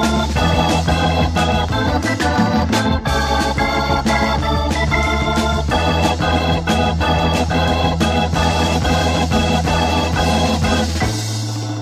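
Instrumental passage of early-1970s progressive rock: sustained organ chords over bass and drums keeping a steady beat. Near the end the drums drop out, leaving a held low note.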